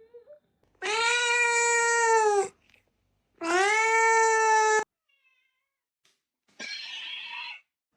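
A cat giving two long, drawn-out meows of about a second and a half each, steady in pitch and dropping slightly at the end. Near the end comes a shorter, breathy, hissing-like sound.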